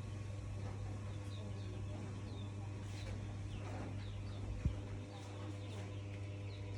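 Small birds chirping faintly over a steady low hum, with one sharp knock about four and a half seconds in.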